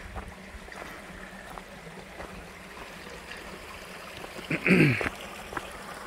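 Small rocky creek trickling softly and steadily. About four and a half seconds in there is a brief, louder sound that falls sharply in pitch.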